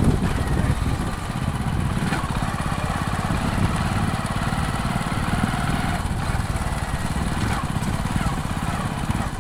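A small vehicle's engine running steadily while under way, a rapid low chugging with wind rushing over the microphone.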